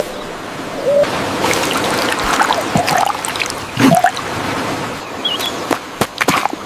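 A few short, soft hoot-like calls, about a second apart, over a steady wash of surf. A brief higher chirp comes near the end, and scattered clicks and taps run throughout.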